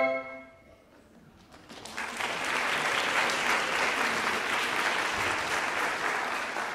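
The final chord of a flute, clarinet and bassoon trio dies away in the first half second. After about a second of near silence, an audience starts applauding about a second and a half in; the applause fills out within half a second and continues steadily.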